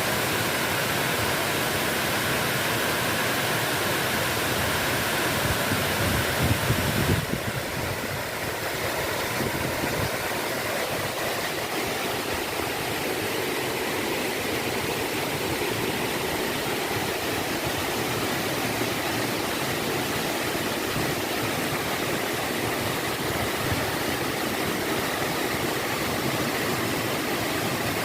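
Water pouring steadily over a small waterfall in a stream, a constant rushing hiss. A louder low rumble swells about five seconds in and falls away after about seven seconds, after which the rush is slightly quieter.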